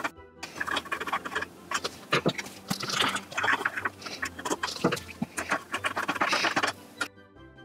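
Clicking, tapping and scraping of small metal blades and screws being handled on a robot lawnmower's plastic cutting discs, a busy run of small clicks. It cuts off suddenly near the end, leaving faint music.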